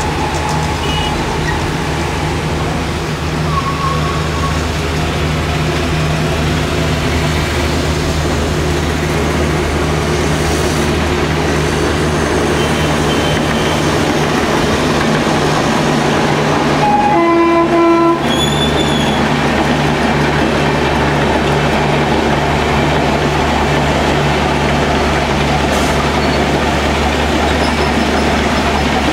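Trains running past: the steady rumble and low hum of a suburban EMU, then a WAG-9 electric locomotive hauling express coaches. A train horn sounds once, briefly, about 17 seconds in.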